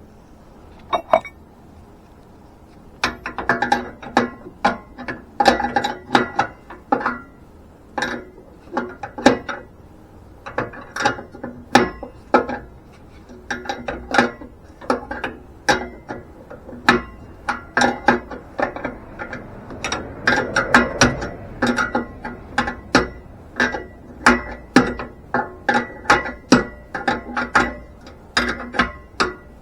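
Hand ratchet wrench clicking in short back-and-forth strokes, a few sharp clicks per stroke, starting about three seconds in after a single click. It is turning the oxygen sensor in the exhaust.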